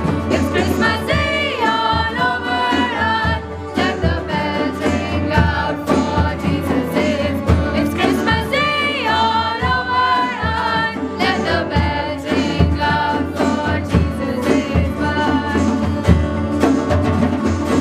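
A Christmas carol sung by a small mixed group of young voices, accompanied by keyboard, acoustic guitar and hand drums keeping a steady beat.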